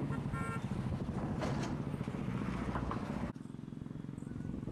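Motor vehicle engine running with a fast, even throb. About three seconds in it changes abruptly to a quieter, steadier rumble.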